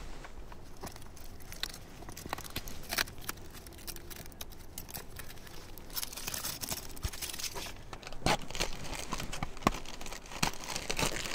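Thin protective plastic film being peeled off the mirrored reflector panels of a GoSun Go solar oven: irregular crinkling and crackling with scattered small clicks.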